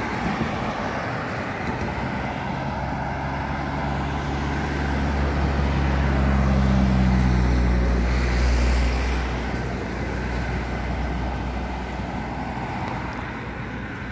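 Road noise of a moving vehicle on a highway, with a low engine drone that swells over several seconds near the middle and then fades away.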